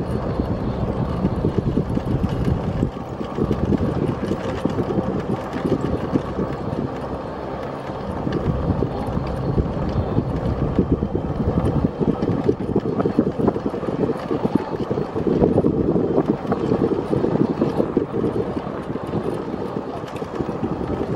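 Small vehicle driving slowly along a paved lane: a steady rumble of motor and tyres, with wind buffeting the microphone.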